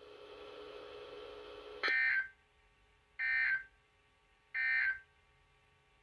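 A NOAA Weather Radio receiver's speaker plays three short, identical digital data bursts, each about half a second long and a little over a second apart. These are the EAS/SAME end-of-message code that closes the Required Weekly Test broadcast. A faint steady hum from the open channel comes before the first burst.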